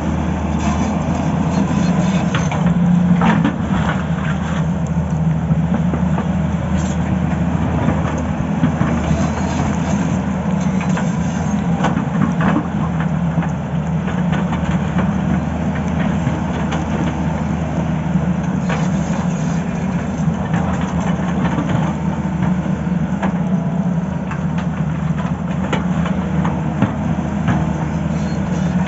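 Tata Hitachi excavator's diesel engine running steadily under work, with occasional sharp knocks from the machine at work.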